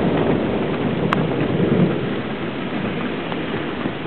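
Heavy rain pouring, with a rolling rumble of thunder after a lightning strike that gradually dies away.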